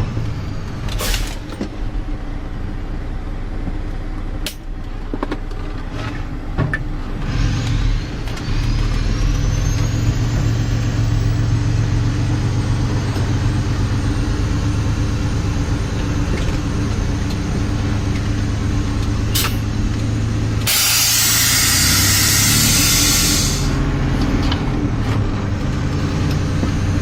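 Freightliner tandem dump truck's diesel engine running steadily, heard from inside the cab, with a high whine that climbs and then holds. A few sharp clicks, and about two-thirds of the way through a loud hiss of air released for roughly three seconds.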